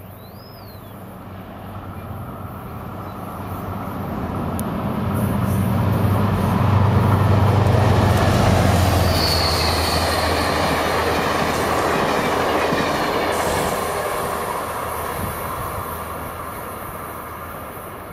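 Amtrak Empire Service train hauled by two Genesis diesel locomotives passing. The low drone of the engines and the rumble of wheels on the rails build to a peak about halfway through, then fade as the train moves away. A brief high wheel squeal comes around the peak.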